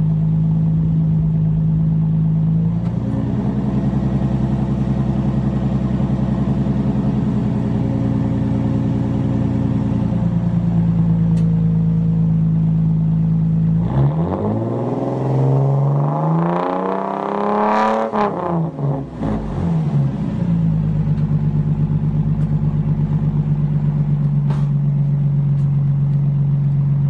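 Straight-piped Lexus GS300's 2JZ-GE inline-six, muffler and resonator deleted, idling through the exhaust. The idle steps up a little and settles back, then the engine is revved several times over about six seconds, the pitch rising and falling, before it drops back to a steady, pulsing idle.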